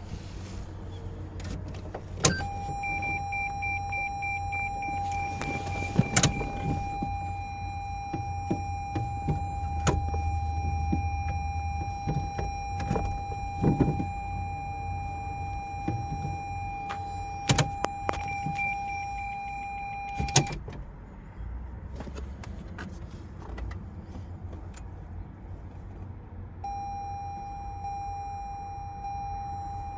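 A steady, high, even-pitched electric tone from the 2016 Toyota Highlander. It starts with a click about two seconds in, stops with a click after about eighteen seconds, and starts again near the end. Scattered clicks and knocks come in between.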